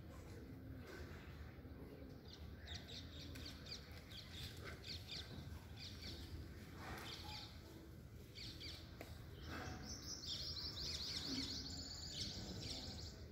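Birds chirping and twittering in short scattered calls, with a fast high trill in the last few seconds, over faint steady background noise.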